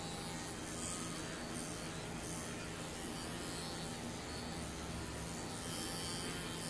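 Electric dog-grooming clippers running with a steady buzzing hum.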